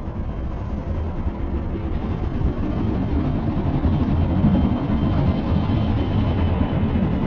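Slowed-down recording of a passing train: a deep, steady rumble that grows slightly louder, with a faint thin high tone from about halfway.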